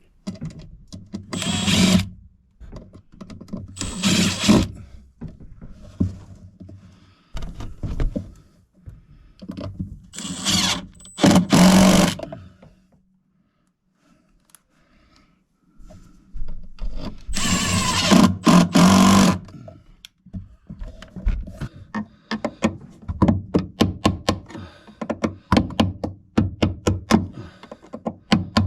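Several short bursts of a power tool running, each a second or two long, then a long run of quick clicks and knocks from hands-on electrical work.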